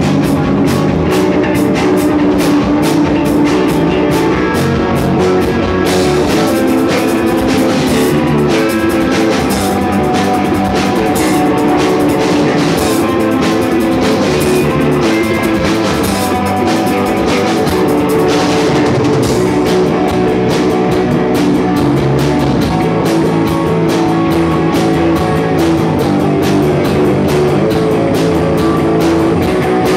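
A rock band playing, with drum kit and guitar, loud and steady throughout.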